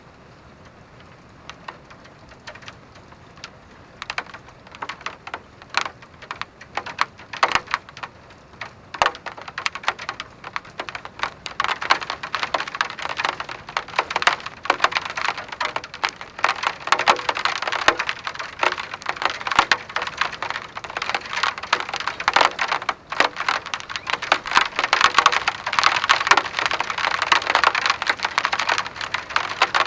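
Rain starting as a faint steady hiss, then building into a dense, crackling patter of individual drops striking a hard surface, heavier and closer together as it goes on.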